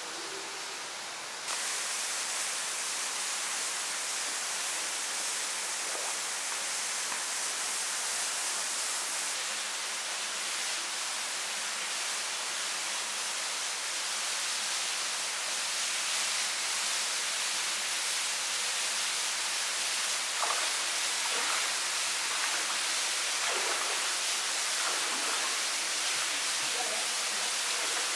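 Steady rushing hiss of running water, which gets louder about a second and a half in, with a few faint short sounds in the second half.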